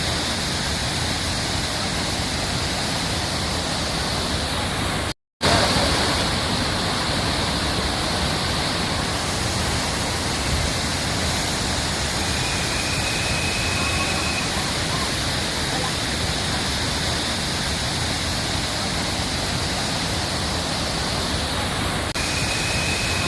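Waterfall, a steady loud rush of falling water. The sound cuts out completely for a moment about five seconds in, then returns. A faint thin high tone sounds for about two seconds in the middle.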